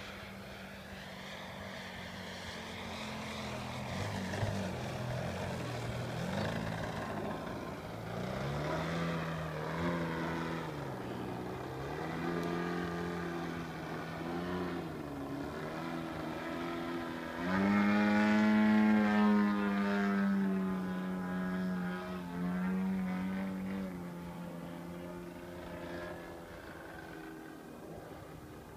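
DLE-120 twin-cylinder two-stroke gas engine of a 100cc-class Aeroworks Edge 540 radio-controlled aerobatic plane in flight, its propeller note rising and falling as it manoeuvres. About 17 seconds in it turns suddenly louder and higher, the loudest part, for about three seconds before easing back to a steadier note.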